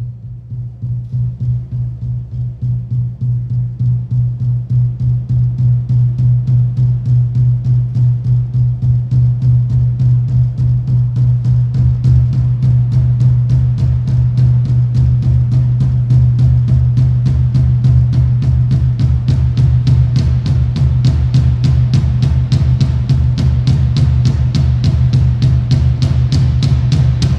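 Drum kit playing a fast, even pulse of strokes over a low sustained organ note. It builds in loudness over the first few seconds while the cymbal wash grows brighter, then stops abruptly at the very end.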